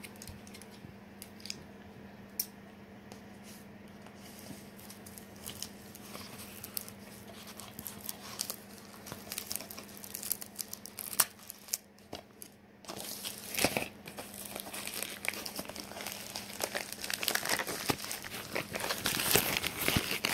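Plastic packaging crinkling and tearing as a package is opened by hand: sparse rustles at first, then busier and louder crinkling from about halfway through.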